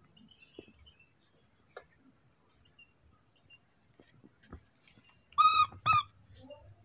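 A baby macaque gives two short, high-pitched calls in quick succession near the end, each rising and falling slightly in pitch.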